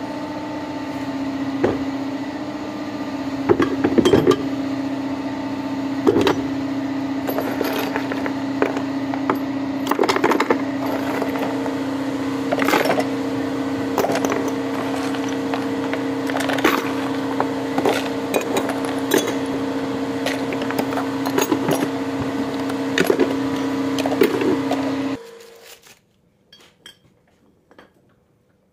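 A machine hums steadily at one pitch while metal alternator parts clink and knock against each other and a metal tray. The hum and the clinking cut off suddenly about 25 seconds in, leaving only faint taps.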